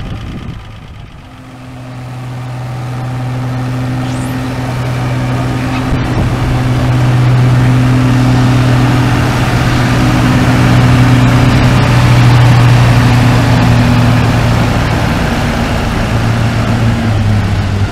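1963 Farmall 706 tractor engine pulling a weighted sled under heavy load. About a second in it opens up and grows louder over several seconds, then runs hard at a steady pitch. The pitch drops near the end.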